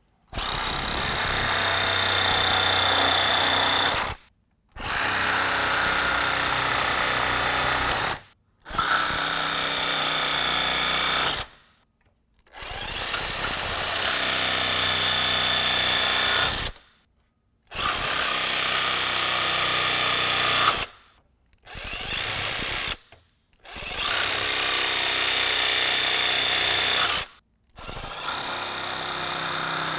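Ryobi cordless jigsaw cutting through a truck's stock plastic grille, with a high steady whine over the rasp of the blade. It runs in about eight stretches of a few seconds each, separated by brief silent breaks.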